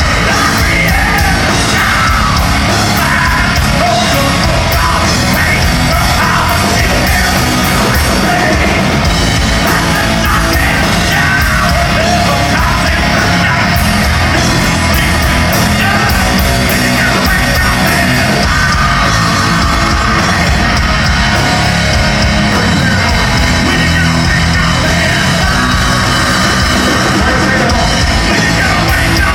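Heavy rock band playing loud and without a break, with yelled and sung vocals over the band.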